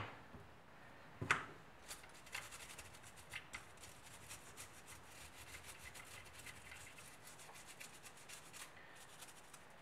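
Small nylon brush scrubbing worn-drive-belt dust out of a scooter starter clutch: a faint, quick run of light scratchy brush strokes, with a single knock about a second in.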